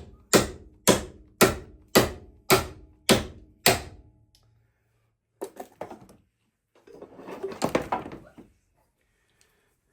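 A hammer striking steel bodywork, about two even blows a second with a short metallic ring after each, seven or eight blows that stop about four seconds in. After a pause, a few lighter knocks and then a longer clatter of metal being handled.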